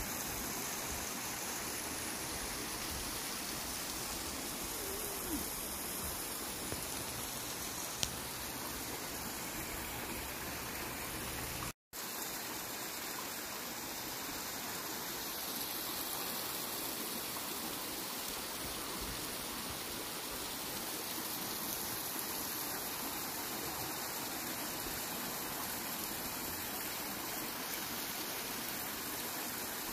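Steady rush of spring water pouring over rocks into a pool. It breaks off for an instant about twelve seconds in.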